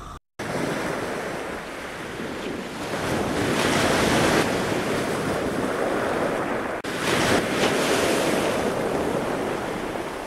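Wind and rushing surf on open water, with wind buffeting the microphone. It is a steady noise that swells louder a few seconds in and again after a split-second drop about two-thirds through.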